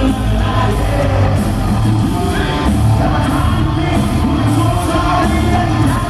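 Live hard rock band playing at full volume through a concert PA, with a male lead singer's voice over the band.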